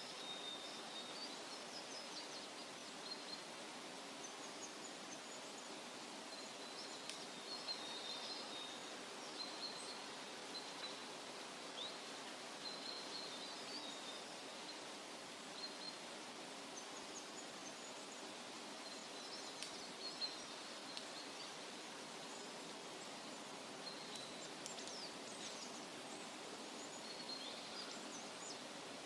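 Forest ambience: a steady soft hiss of outdoor background noise, with small birds chirping high now and then in several short spells.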